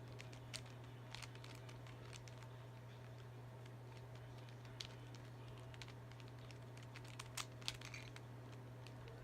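Rubik's cube layers being turned by hand, scattered faint plastic clicks with a few quicker ones near the end, over a steady low hum.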